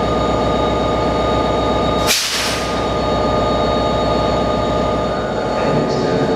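NJ Transit diesel locomotive idling with a steady low drone and constant whining tones. About two seconds in, a sharp burst of air hiss fades within half a second. The low drone weakens shortly before the end.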